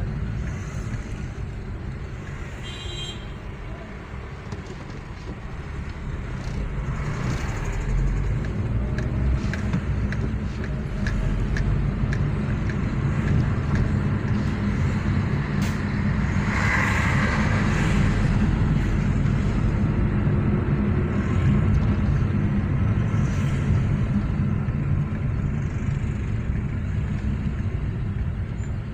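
Road noise heard from inside a moving car in city traffic: a steady low engine and tyre rumble that grows louder several seconds in and stays up. A brief high-pitched tone sounds about three seconds in.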